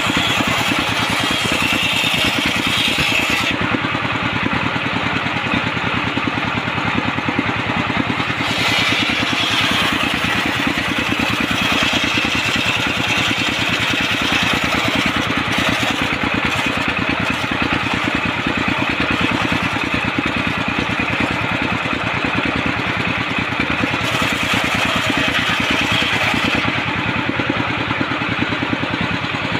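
Engine-driven circular saw bench running steadily with a dense, even engine beat, its blade cutting lengthwise through jackfruit timber. A higher cutting noise comes and goes in several stretches as the wood is fed through.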